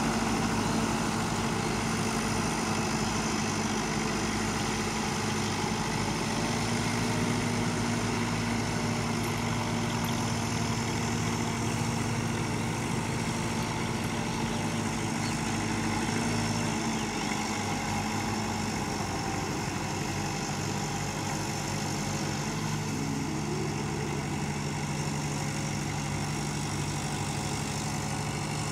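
Farm tractor's diesel engine running steadily while it works through deep, swampy mud. Its note shifts partway through.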